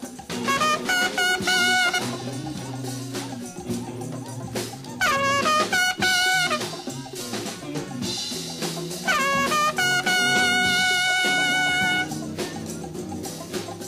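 Jazz ensemble playing: a horn plays three loud phrases, each climbing quickly into a held note, the last held for about three seconds, over drums and bass.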